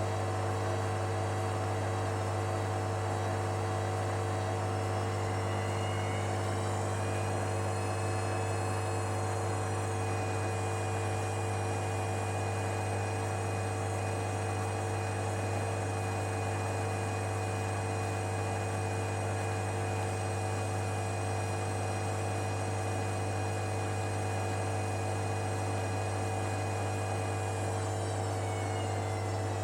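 Hoover Dynamic Next washer-dryer motor humming as the drum speeds up into an intermediate spin. The motor whine rises in pitch over a few seconds, holds steady at about 400 rpm, then begins to fall near the end.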